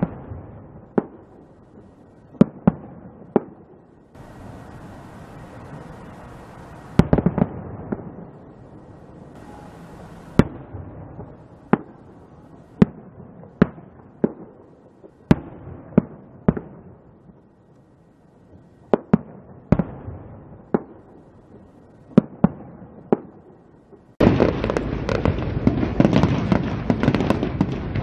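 Fireworks going off: a string of sharp, separate bangs, irregularly about a second apart, each trailing off in a short echo. About 24 s in the sound switches abruptly to a louder, dense, continuous wash.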